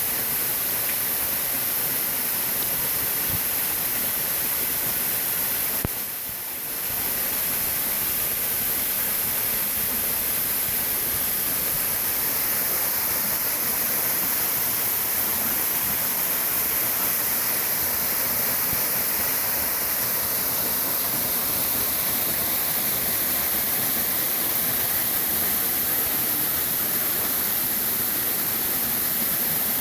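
Steady rushing of a waterfall about 8 metres high, with a brief drop in level about six seconds in.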